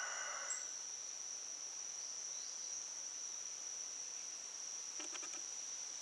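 Insects drone steadily on one high pitch. The end of a rooster's crow fades out in the first second, and a brief rattle of clicks comes about five seconds in.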